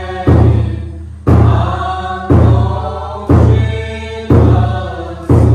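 A deep percussion instrument struck slowly and evenly, about once a second, each stroke ringing and fading before the next.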